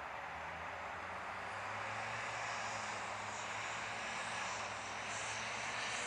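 Combine harvester and grain-cart tractor heard from a distance as a steady machinery drone with a low engine hum, while the combine unloads corn.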